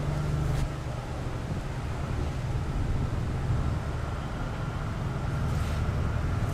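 Steady low engine rumble with a faint steady whine above it, mixed with wind on the microphone.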